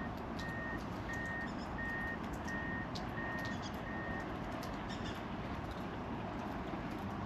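A vehicle's reversing alarm beeps evenly, one high beep about every two-thirds of a second, six times, then stops about four seconds in, over a steady background hiss.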